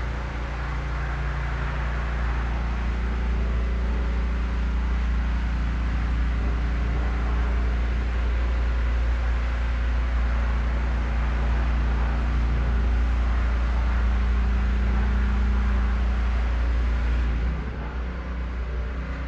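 A 1996 Honda CBR600's inline-four engine running steadily at idle, with a deep, even rumble. It gets quieter near the end.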